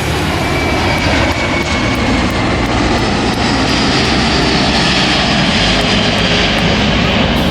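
A fixed-wing aircraft engine running loud and steady, with a faint high whine that falls slowly in pitch over the first few seconds.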